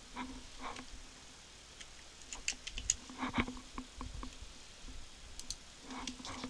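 Computer mouse buttons and keyboard keys clicking: scattered light clicks in small clusters as faces are selected and a modelling command is keyed in.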